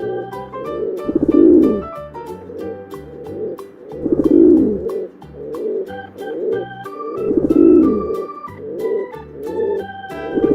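Pigeon cooing: a low, rounded coo repeated about every three seconds, with softer coos between, over background music with a steady beat.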